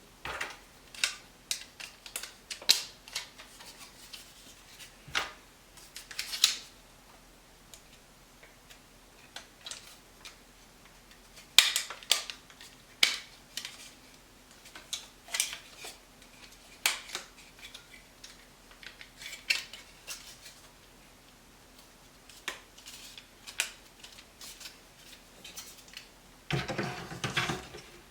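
Scattered sharp clicks and light knocks of hard plastic and metal as hard drives and drive trays are handled and snapped together. Near the end a denser run of clatter begins.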